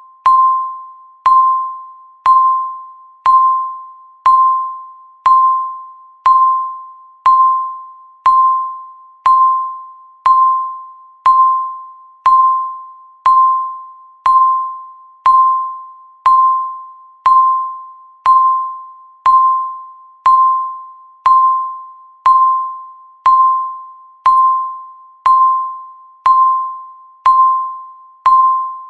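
Countdown timer's tick sound: a short, clear electronic ding that dies away quickly, repeated evenly once every second, marking the seconds.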